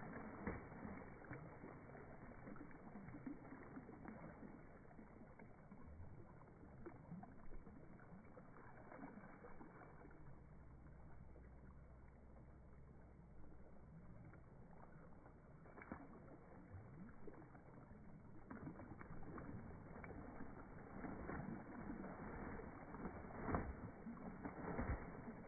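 Muscovy duck bathing in shallow water, splashing and beating its wings on the surface. There is a calmer stretch in the middle, and the splashing picks up again near the end.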